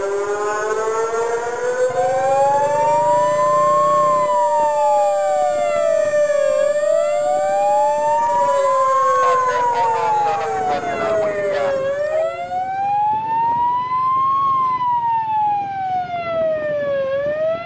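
Emergency vehicle sirens wailing, each sweep rising and falling slowly about every five seconds. A second siren overlaps in the first half, holding one steady tone for several seconds.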